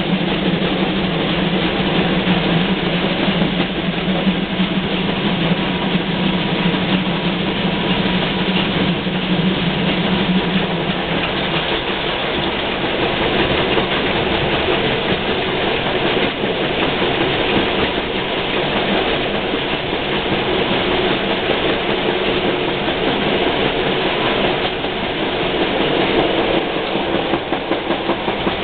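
Train hauled by the steam locomotive 64 518 running on the rails, a steady rumbling noise. A low hum in it drops away about eleven seconds in.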